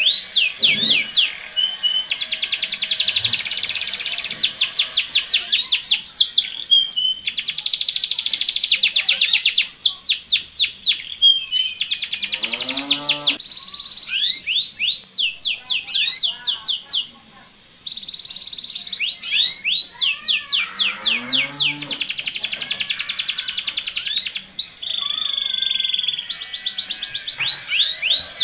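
Canaries singing courtship song: a male in breeding condition delivering loud, long runs of rapid repeated notes and rolling trills, broken by short pauses, with female calls mixed in.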